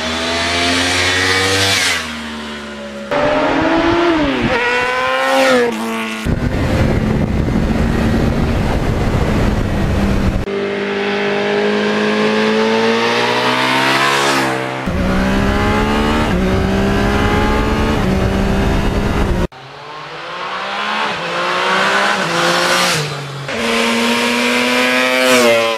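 Motorcycle engines revving and accelerating in a string of short clips that cut abruptly from one to the next, the pitch rising and falling with each rev.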